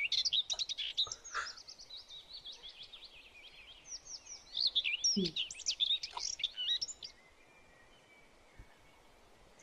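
A songbird singing a fast, varied run of high-pitched chirps and trills, which stops about seven seconds in.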